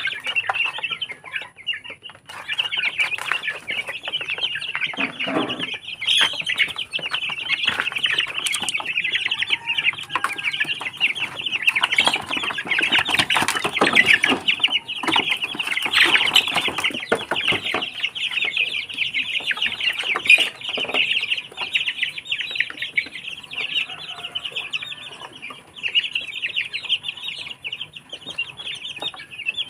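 A flock of young Barred Plymouth Rock chickens peeping and clucking without a break, many high calls overlapping. About halfway through, a burst of wing-flapping and scrambling as the birds rush the grain.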